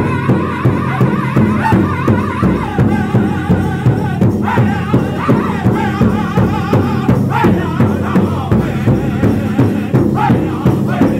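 Powwow drum group performing an intertribal song: several men singing together over a large shared powwow drum, struck by all the drummers at once in a steady beat of about three strokes a second.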